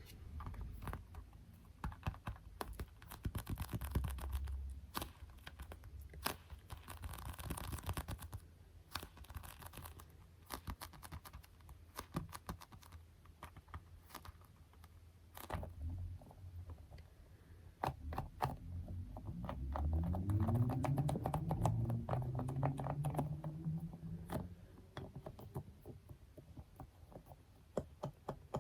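Light fingertip tapping and scratching on small soft and plastic objects, in quick irregular runs of taps and scrapes. About twenty seconds in, a squeaky rubbing sound rises in pitch for a few seconds.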